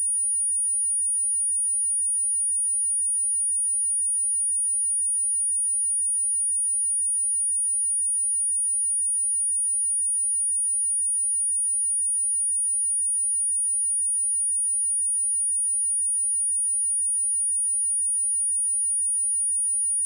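A steady, high-pitched pure tone: a 9598 Hz sine wave test signal, held at one pitch and level without change.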